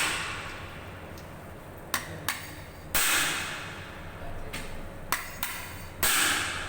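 Hammer blows knocking at the motor of an industrial vacuum cleaner during dismantling: three heavy strikes about three seconds apart, each with a short ring, and a few lighter taps between them.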